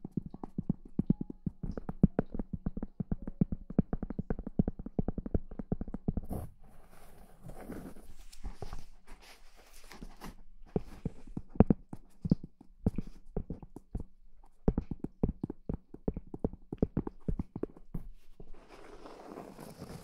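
Fingertips and nails tapping quickly on a round wooden board, many light taps a second, broken by stretches of nails scratching across the wood about six seconds in and again near the end.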